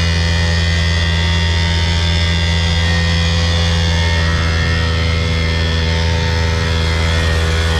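Small 49cc two-stroke single-cylinder petrol engine of a mini dirt bike running while it is ridden, a steady droning note at an even throttle.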